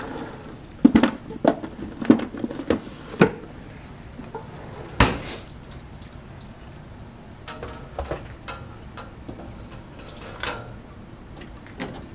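Clattering knocks of lab equipment being handled in a wooden cabinet as a hot stirring hot plate is put away and a cool one taken out: a quick run of about six knocks, one louder knock a couple of seconds later, then lighter clicks and rustling.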